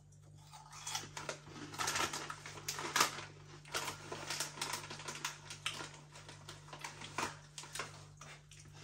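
Close-up chewing of crunchy Nibbley Nobblies crisps: a long run of irregular crisp crunches and crackles, busiest in the first half, over a faint steady hum.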